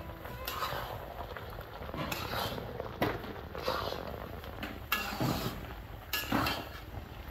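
Kitchen utensils clinking: a spoon knocking and scraping against a dish about half a dozen times.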